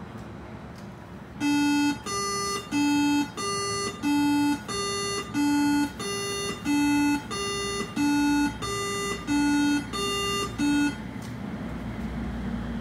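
Two-tone electronic platform chime on an airport people-mover (Skytrain) platform. A low note and a slightly higher note alternate evenly, about three notes every two seconds, for roughly nine seconds, announcing the train's arrival. A low rumble builds near the end.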